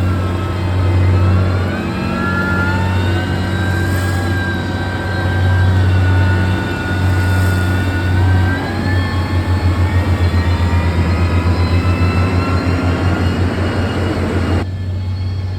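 Heavy diesel construction machine engine running under load, with a whine that rises and falls. For several seconds in the second half the engine note throbs rapidly, and near the end the higher sounds cut off abruptly.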